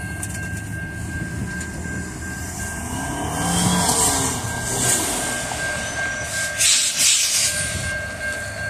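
Diesel engines of the coal train's rear pusher locomotives, EMD SD70ACe units, running under throttle as they pull away. Over them a grade-crossing warning bell rings steadily. A road vehicle passes over the crossing about three to four seconds in, and a brief loud hiss comes near seven seconds.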